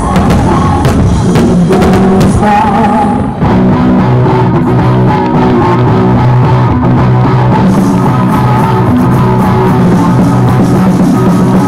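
Loud rock music with singing, guitar and drums, with a short dip and a change of section about three and a half seconds in.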